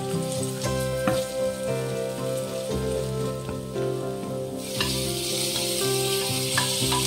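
Sliced onion and green chilli sizzling in hot oil in a frying pan as they are stirred with a spatula, with a few light knocks of the spatula on the pan. The sizzle turns much louder and brighter about two-thirds of the way through, as chopped tomato goes into the pan. Background music plays throughout.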